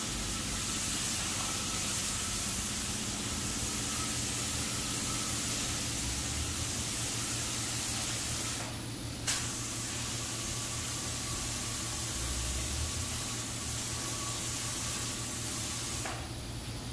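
Gravity-feed spray gun hissing steadily as it lays on candy paint coats at low air pressure. The hiss cuts out briefly a little past halfway, comes back with a short burst, and stops near the end.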